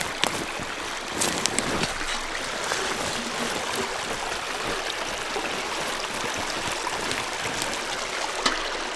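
A small creek running through an opening in its snow and ice cover: a steady rush of flowing water, with a few short clicks.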